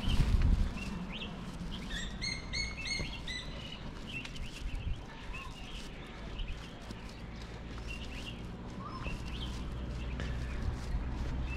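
Small birds chirping and calling, with a quick run of about six clear, ringing notes a couple of seconds in. A brief low rumble at the very start, and a steady low rumble underneath.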